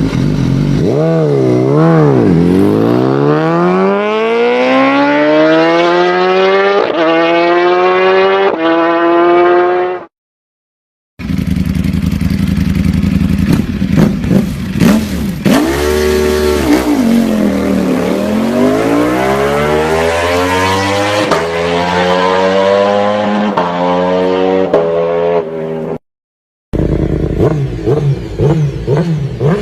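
Motorcycle engines accelerating hard: the pitch climbs steadily and drops back at each gear change, then climbs again. Two brief dead-silent gaps, about ten seconds in and near the end, split the sound into separate runs.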